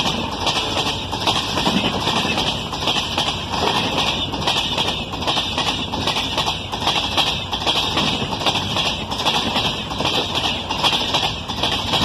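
Express train's LHB passenger coaches passing close at speed, their wheels clattering in a repeated rhythm over the rails under a steady rushing noise.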